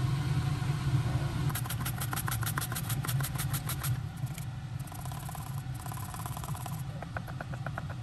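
Rapid, even tapping, several strokes a second, in three runs over a steady low hum: the first run is the loudest and the later two are fainter.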